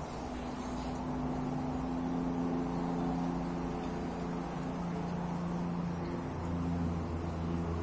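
A steady low engine hum, getting a little louder near the end.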